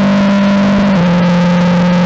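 Formula 4 car's Ford 1.6-litre turbocharged four-cylinder engine heard from the cockpit at full throttle, a steady high drone that drops in pitch about a second in as it upshifts from fifth to sixth gear.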